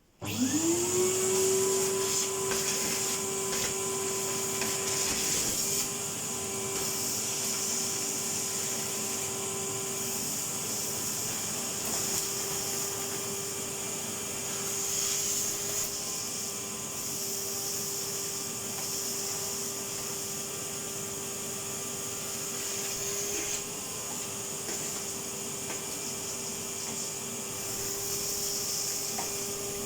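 A Numatic Henry cylinder vacuum cleaner switched on: its motor whines up to speed within about a second, then runs steadily while vacuuming out a wood burner.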